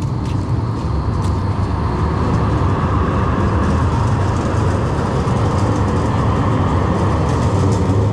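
A vehicle running close by: a loud, steady rumble that swells slightly toward the end.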